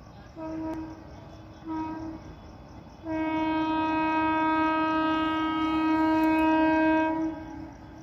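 Train horn sounding two short blasts and then one long blast of about four seconds, over the steady rumble of LHB passenger coaches running past on the track.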